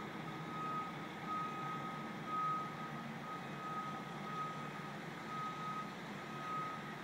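Truck's reversing alarm beeping about once a second, a single steady tone, over the low steady running of the truck's engine; the beeping stops near the end.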